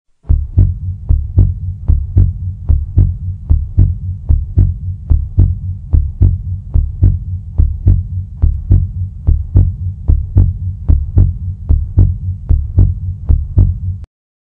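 Heartbeat sound effect: a steady, loud lub-dub double thump a little over once a second over a low hum, which cuts off suddenly near the end.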